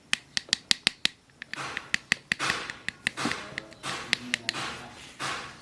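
Hands handling LED-light packaging: a quick run of about ten sharp clicks and taps, then several bursts of rustling with more clicks among them.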